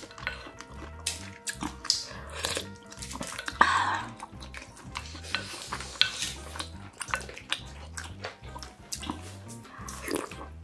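Eating sounds over background music with a steady beat: a wooden ladle scooping and pouring broth from an earthenware pot of shrimp stew, with a splash of broth about three and a half seconds in, plus many small utensil clicks and chewing.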